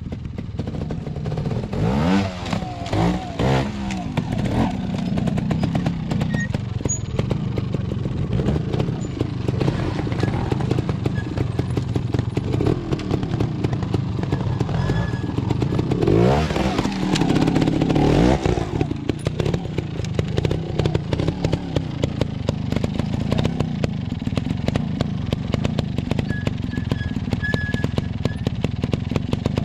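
Beta trials motorcycle's single-cylinder engine running at low revs, with sharp throttle blips that rise and fall quickly a few times about two seconds in and again around sixteen to eighteen seconds.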